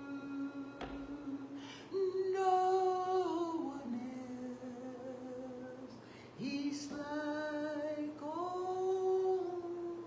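A woman's voice singing slow, drawn-out notes that step up and down in pitch, with a brief pause about two-thirds of the way through.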